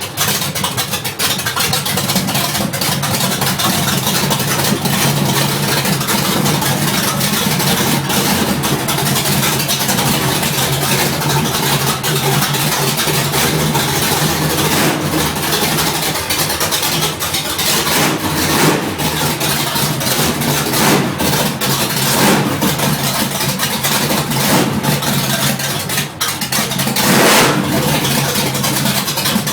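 Third-generation car's engine idling roughly, its level wavering unevenly, with a few brief swells in the second half.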